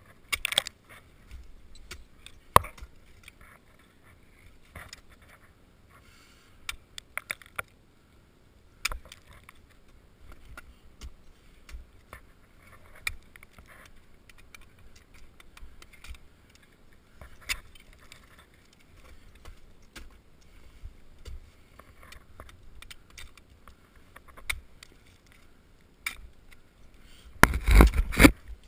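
Ice axes and crampons striking and scraping waterfall ice in scattered sharp knocks, with light clinking of climbing gear. Near the end, a loud rough rubbing as the climbing rope drags across the helmet camera.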